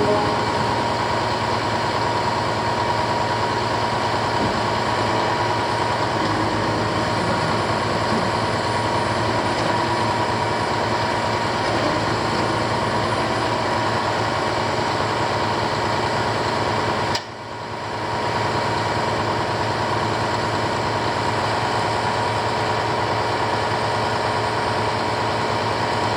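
Truck engine running steadily at a constant speed. It dips out briefly about 17 seconds in and picks up again.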